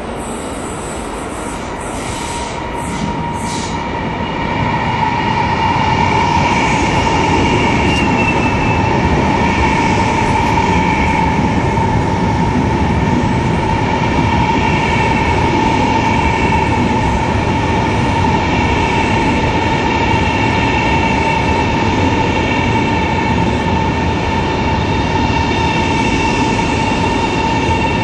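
Changchun CRH380CL high-speed electric train running slowly alongside the platform. Its Hitachi traction system gives a steady electric hum over the rumble of wheels on rail. The sound grows louder about four to five seconds in as the train reaches the microphone and then holds steady.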